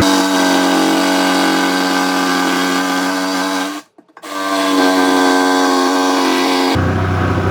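Electric jigsaw running with a steady whine, cutting into the wooden cabinet; it stops briefly about four seconds in, then runs again for nearly three seconds.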